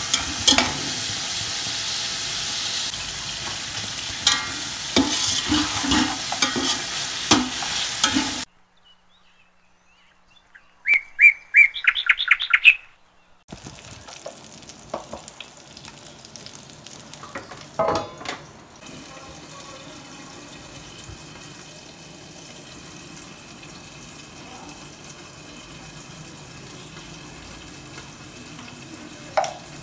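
Onions frying in hot oil in an aluminium pressure cooker, sizzling while a metal spoon stirs and scrapes against the pot. After about eight seconds the sound drops away to near silence, broken by a quick run of high chirps, and then a much quieter steady sizzle with a single knock follows.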